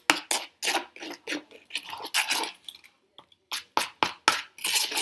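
Irregular clicks, taps and scrapes of a spoon, a small cardboard box and wooden mixing bowls being handled, with short crunchy rustles between them.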